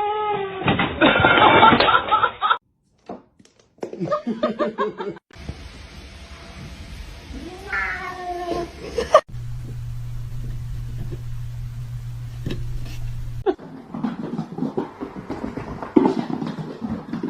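Domestic cats meowing across a string of short clips that cut in and out abruptly. Drawn-out meows come at the start and again about eight seconds in.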